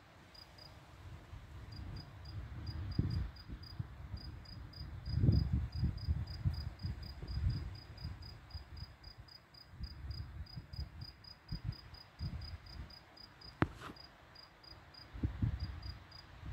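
Cricket chirping steadily, about four or five chirps a second, over an uneven low rumble that swells about five seconds in and again near the end. A single sharp click comes shortly before the end.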